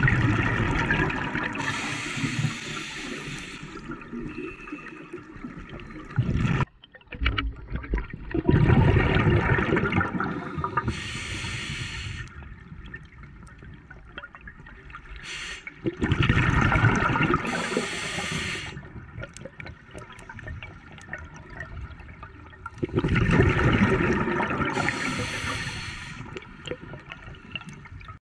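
A scuba diver breathing through a regulator, heard underwater: four long surges of rushing, gurgling exhaust bubbles about every seven to eight seconds, with quieter hiss between them. The sound drops out briefly about seven seconds in.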